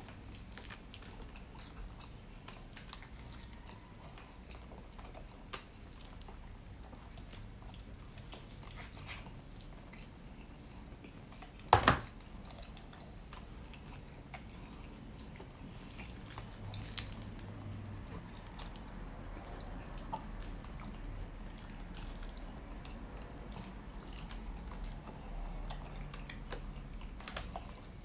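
Close-miked chewing and wet, smacking mouth sounds, with small sticky clicks as fingers tear meat from a honey-glazed rotisserie chicken. One sharp, loud knock about twelve seconds in.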